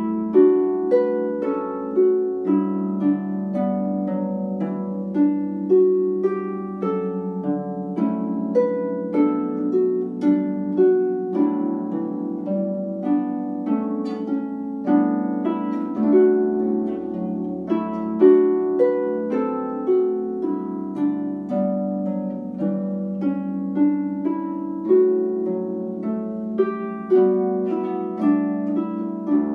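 Harp playing a tune: a melody of plucked notes over ringing lower notes.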